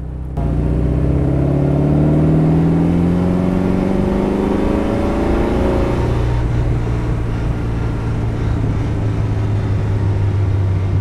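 Austin-Healey 100M's 2.6-litre four-cylinder engine pulling hard, its note rising steadily for about five seconds. The note then drops and settles to a steady, lower drone.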